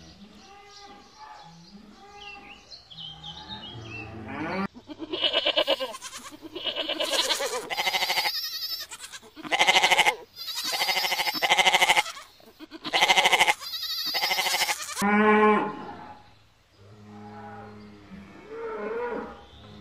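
Cattle lowing softly, then a run of loud, quavering goat bleats from about five seconds in, one after another. Near the end it returns to softer cattle lowing.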